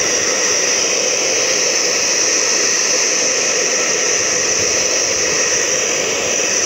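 Handheld hair dryer running steadily while blow-drying freshly washed hair: a loud, even rush of air with a high-pitched whine.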